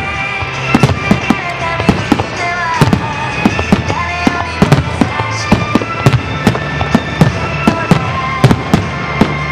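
Star mine fireworks barrage: aerial shells bursting in quick succession, several sharp bangs a second, with music playing underneath.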